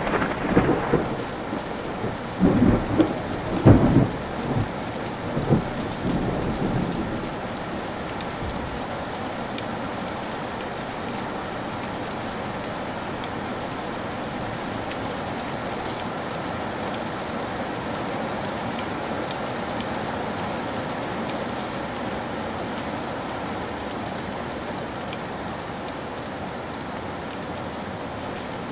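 Thunder rumbling with a few loud cracks in the first several seconds, dying away by about seven seconds in, over rain falling steadily, which then carries on alone.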